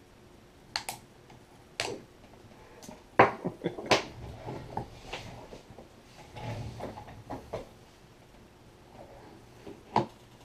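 Irregular sharp clicks, taps and knocks of hard plastic being handled and worked at on a pair of Bose QuietComfort headphones, as an old ear-cushion ring is pried out and the parts fitted; the loudest knocks come about three to four seconds in, with a last sharp click near the end.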